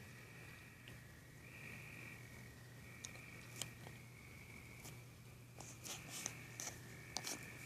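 Faint chorus of crickets: a steady high trill with a second trill that swells and drops away every second or so, scattered light ticks, and a low steady hum underneath.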